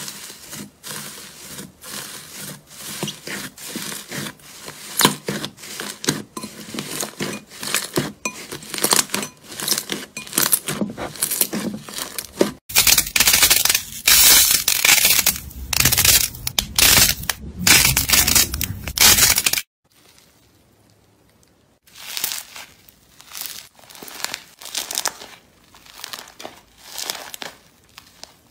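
Hands working slime: first, slime covered in crumpled metallic foil is pressed, and the foil crinkles and crackles in quick, uneven strokes. Next, a tray of orange slime balls is squeezed, giving a denser, louder crackling. After a short quiet pause about twenty seconds in, slime is stretched out of a plastic tub with softer, scattered crackles.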